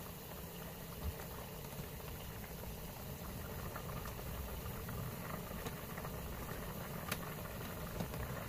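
Pot of seafood boil water at a rolling boil: a steady bubbling rumble, with a couple of faint clicks.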